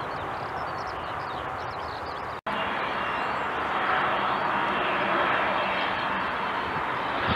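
Jet aircraft noise with a sudden cut about two and a half seconds in: first a steady rush from an airliner on the runway, then a Cessna 525 CitationJet CJ1 business jet on approach to land, its twin turbofans giving a steady whine over a rushing noise that slowly grows louder.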